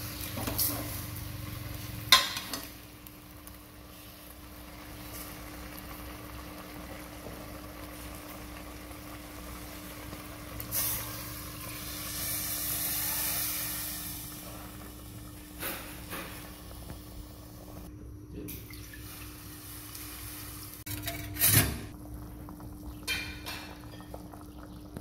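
A metal ladle stirring and scraping in a stainless steel pot, with sharp clanks of metal on the pot, the loudest about two seconds in and another near the end. Around the middle, water poured from a bowl into the pot splashes for about three seconds. A steady low hum runs underneath.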